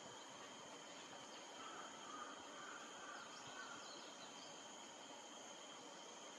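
Faint outdoor ambience: a steady high insect-like drone, with a few faint short bird chirps about three to four and a half seconds in.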